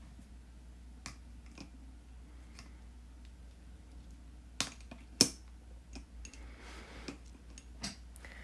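Light scattered clicks and taps of small hard objects being handled on a work surface, with two sharper clicks about halfway through, over a low steady hum.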